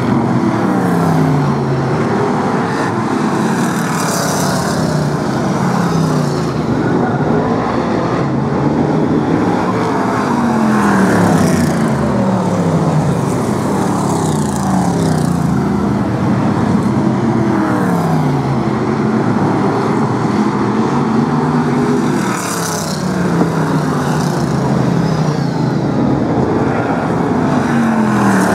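Several BriSCA F1 stock cars racing, their engines loud and overlapping. The engine pitch falls again and again as cars go past.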